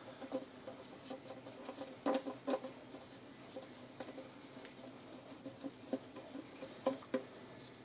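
Faint scratching and a few light clicks as the oil drain plug is threaded back into the oil pan of a BMW N62 V8 by a gloved hand. The loudest clicks come about two seconds in and again near the end.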